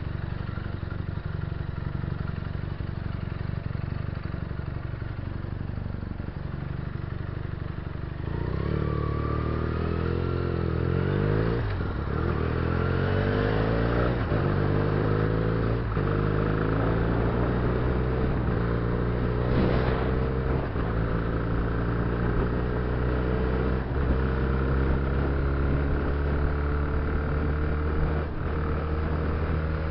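Benelli 300 cc parallel-twin motorcycle engine running at low speed, then about eight seconds in pulling away and accelerating. Its note climbs in each gear, with short breaks at the upshifts every two seconds or so, then rises slowly and steadily as the bike gathers speed.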